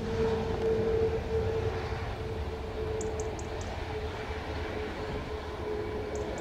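Boeing 737 airliner rolling out on the runway just after landing, spoilers raised: a steady rumble of its jet engines with a whine that wavers, strongest in the first couple of seconds.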